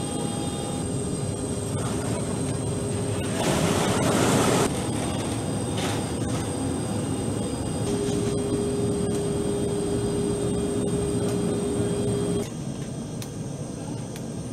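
Steady mechanical drone of aircraft machinery heard inside a transport aircraft's cargo hold, with high whining tones over it. About three and a half seconds in there is a louder burst of hiss lasting about a second, and from about eight seconds a steady hum tone joins for about four seconds before the sound drops quieter.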